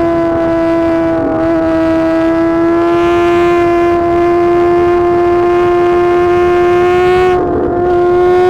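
Suzuki GSX-R 1000 R inline-four with a full titanium SC-Project exhaust, held at high, nearly constant revs with a steady high-pitched howl. There is a brief break in the note about a second in and again near the end.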